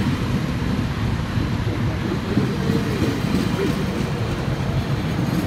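Metrolink bilevel passenger coaches rolling past at close range, a steady rumble of steel wheels on the rails.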